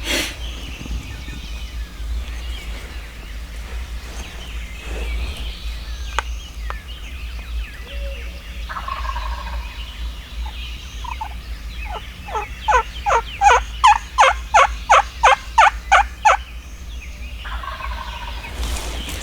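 A run of about fourteen loud, evenly spaced turkey yelps, each note falling in pitch, about three or four a second, starting about twelve seconds in.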